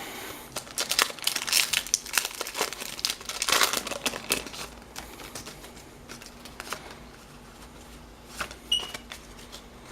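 Foil Pokémon booster pack wrapper crinkling and tearing as it is opened. It is busiest in the first four or five seconds, then settles into a few scattered faint crackles.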